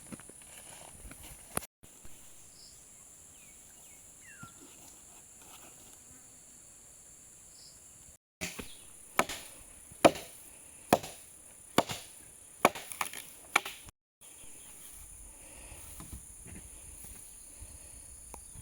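Wood being chopped, about ten sharp strokes in quick succession midway through. A steady high insect drone runs underneath.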